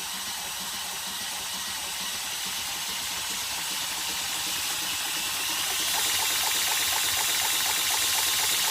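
2x72 belt grinder running with a steady high hiss that gets louder about six seconds in, joined by a light, regular ticking of about three a second.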